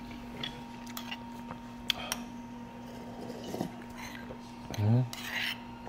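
Cutlery clinking against dishes during a meal, with a couple of sharp clicks about two seconds in and short vocal sounds near the middle and end. A steady electrical hum runs underneath.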